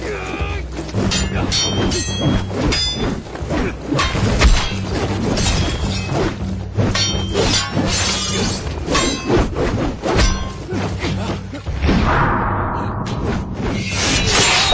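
Film fight sound effects: a rapid run of weapon clashes, metallic clangs and hits between a spear and a broad-bladed polearm, with swishes and one long falling swoosh near the end. A dramatic film score with a steady low drone runs underneath.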